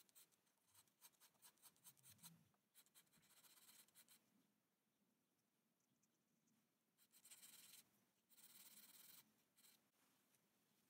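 Faint scratching of a craft knife blade stroked across fine-grit sandpaper: a quick run of short scrapes in the first few seconds, then two longer strokes about two thirds of the way through.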